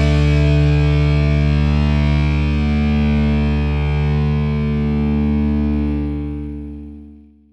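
Intro music: a distorted electric guitar chord held and ringing out, fading away near the end.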